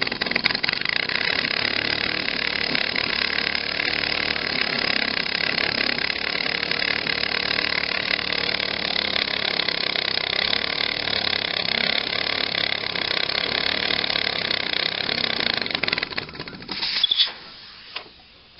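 Home-built single-cylinder uniflow model engine with ball valves running fast at 2 bar, a dense steady hiss and rattle of its exhaust and moving parts. It keeps running when a hand grips the flywheel. About 16 s in it cuts off, followed by a couple of sharp knocks.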